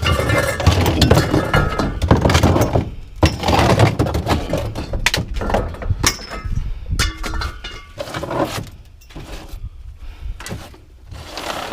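Scrap metal being thrown and dumped onto a pile: a dense run of crashes and clanks that thins to scattered knocks after about eight seconds.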